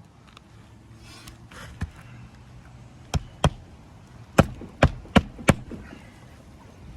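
Hammer blows under a lifted asphalt shingle, most likely nailing a roofing nail: a faint tap, then two sharp strikes, a short pause, and four quicker strikes.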